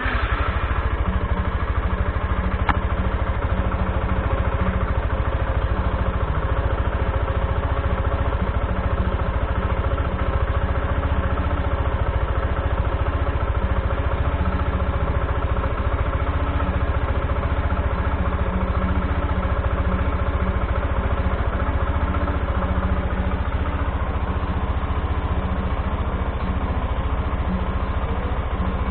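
Yamaha FZi (FZ fuel-injected, 2016) motorcycle's single-cylinder engine idling steadily on its stock muffler, freshly started.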